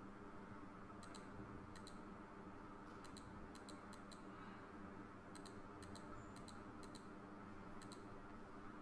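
Computer mouse button clicking: about twenty short, sharp clicks, many in quick pairs, over a faint steady hum.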